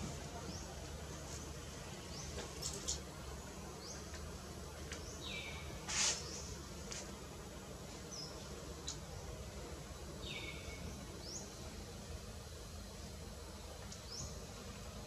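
Outdoor ambience with a steady hiss and high chirping calls: a short call repeated about every five seconds, quick rising chirps in between, and one sharp click about six seconds in.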